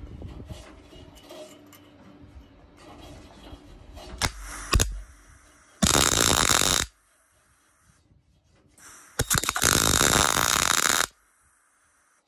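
MIG welder crackling in two short bursts, about a second and then about two seconds long, as captive nuts are welded onto the steel sill panel. Before the bursts there are a few seconds of faint handling noise and a single knock.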